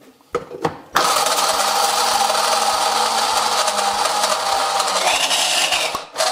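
Electric hand blender on a mini-chopper attachment grinding walnuts. A couple of light knocks come first, then the motor starts about a second in, runs steadily under load and stops just before the end.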